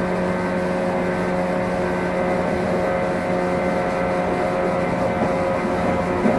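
Inside the motor car KuMoHa 115-302 of a JR 115 series electric train: steady running noise, a rumble with several held tones of motor and gear hum that keep an even pitch.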